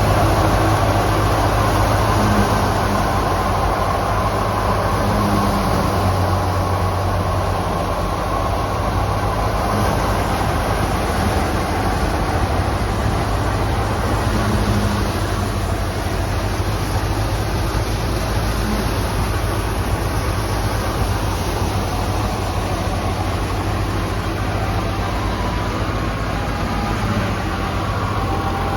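Wheat thresher machine running steadily, a continuous loud mechanical hum and rumble.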